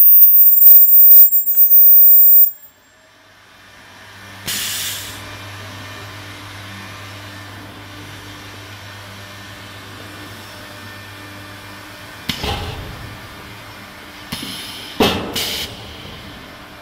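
Automatic filter bag welding machine at work: a very loud harsh noise for the first couple of seconds, then a steady low hum broken by short hisses, once about four seconds in and again near the end.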